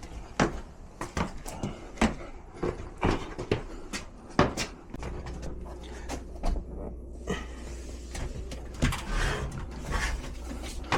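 Irregular knocks, clunks and scrapes of sheet-metal HVAC equipment being handled and shifted into place, with a low steady hum coming in about halfway through.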